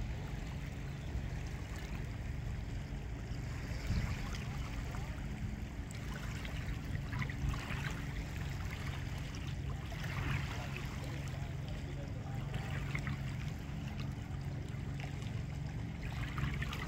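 Lake water lapping and splashing with a few irregular soft splashes, under a steady low wind rumble on the microphone.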